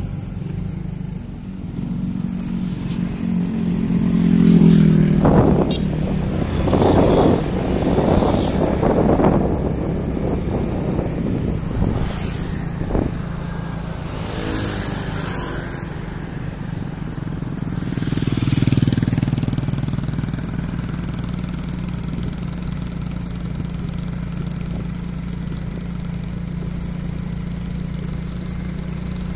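A motorcycle engine running steadily at road speed, heard from on the moving bike. Other motorcycles pass, loudest about five to nine seconds in and again around nineteen seconds.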